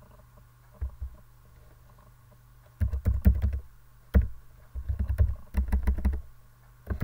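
Computer keyboard being typed on in short bursts of keystrokes with pauses between, each keystroke a sharp click with a heavy low thud, over a faint steady low hum.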